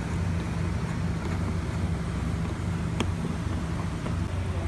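2004 GMC Envoy's inline-six engine idling steadily, with a new ignition coil just fitted on cylinder 1 to cure a misfire. A single sharp click about three seconds in.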